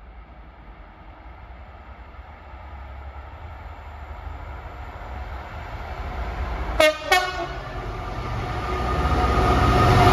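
A Class 66 diesel freight locomotive (66194), with a two-stroke V12 engine, approaching and passing with its train. The engine and wheel noise grows steadily louder, and the horn gives two short blasts about seven seconds in.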